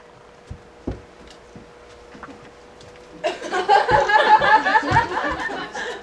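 A faint steady hum and a couple of soft knocks, then about three seconds in a theatre audience starts laughing, with many voices overlapping for nearly three seconds.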